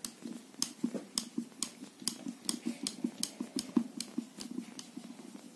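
Screwdriver clicking and turning in the terminal screw of an angle grinder's switch as the power lead is loosened: a run of light, irregular clicks, about three a second.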